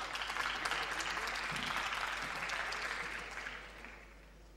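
Audience applause, many hands clapping, fading away near the end.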